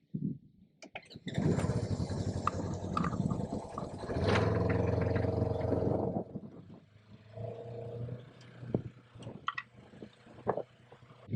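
A vehicle engine starts about a second in and runs, running louder for a couple of seconds before dropping away near the middle, with a few clicks and knocks after it.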